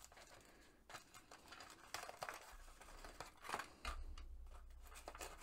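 Faint rustling and light clicks of a kraft paper pouch and small plastic diamond-painting tools being handled as they are slid back into the pouch.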